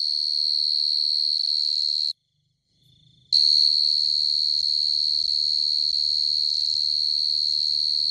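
A cricket's high, steady trill, stopping about two seconds in and starting again about a second later.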